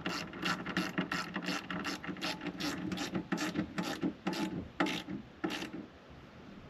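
Ratchet wrench clicking steadily, about four clicks a second, as M6 bolts are run down into nut inserts; the clicking stops about five and a half seconds in.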